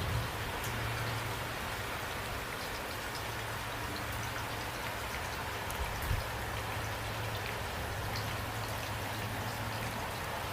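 Steady rain falling, with scattered drops ticking through it and a low hum underneath that drops out and returns. A brief soft thump comes about six seconds in.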